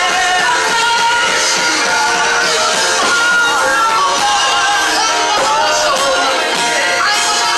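Live gospel worship music: singers leading a song into microphones over amplified backing, loud and continuous.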